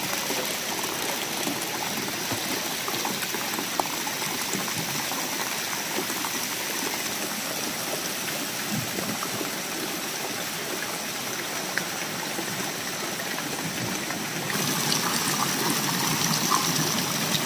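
Water-park splash-pool fountain jets and sprays spattering steadily into the pool, an even rushing hiss of falling water. About fourteen seconds in it grows a little louder, with water pouring close by from a play structure.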